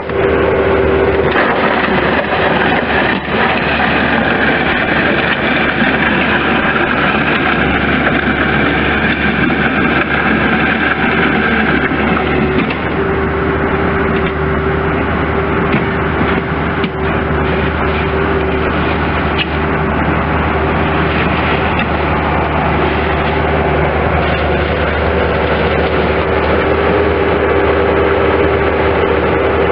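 Diesel engine of a 2005 Bobcat S185 skid steer loader running steadily, with a steady whine over the engine sound.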